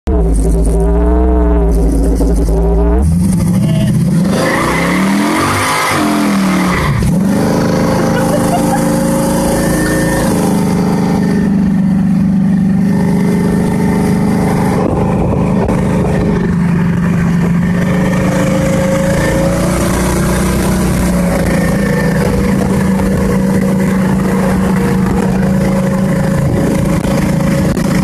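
Car engine heard from inside the cabin, pulling hard with its pitch climbing and dropping between about three and seven seconds in, then settling into a steady cruise. Wind and road hiss run underneath.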